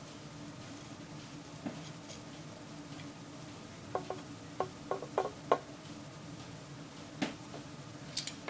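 Light clicks and taps from handling a small disk magnet at a clear sheet, over a steady low hum. A quick run of about six small clicks comes around the middle, then a single knock and a fast double click near the end.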